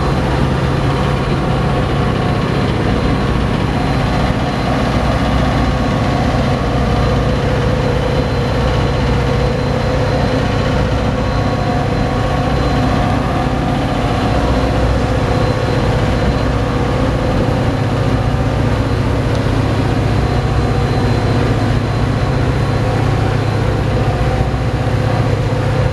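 Metra F40PH diesel locomotive idling at a standstill: the steady low drone of its EMD 16-cylinder two-stroke engine, with a few steady higher tones over it.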